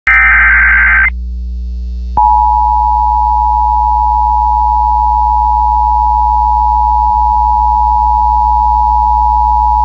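Emergency Alert System tones from a radio broadcast. The last data burst of the SAME header is a harsh buzzing warble for about a second, and it stops abruptly. After a pause of about a second, the steady two-tone EAS attention signal (853 and 960 Hz) comes in, announcing a severe thunderstorm warning. A low hum sits under it.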